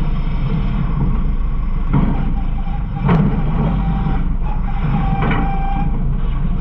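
Garbage truck running, heard from inside its hopper: a steady low engine drone with two sharp knocks about two and three seconds in, and a thin high tone held for a couple of seconds after the middle.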